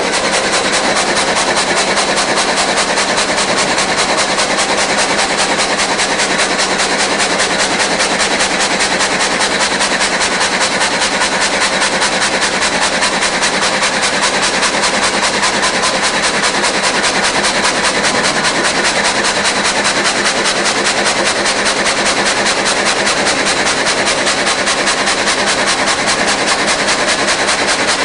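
Multi-blade rip saw machine running: a loud, steady mechanical din with a rapid even rattle and a thin high whine.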